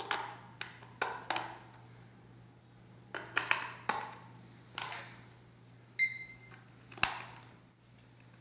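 Plastic buttons on a digital humidity-temperature alarm clock clicking as they are pressed, about ten presses in irregular groups, and one short electronic beep from the clock about six seconds in.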